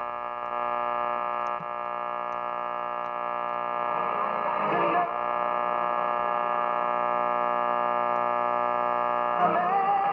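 A 1951 Silvertone AA5 tube clock radio playing through its speaker as it is tuned slowly across the AM band. It gives a steady, many-toned buzzing hum, and a station's voice comes through about four to five seconds in and again near the end.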